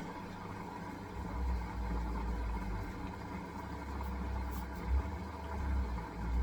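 Hisense washing machine running a wool cycle: a steady motor hum with a low rumble that swells and eases a few times.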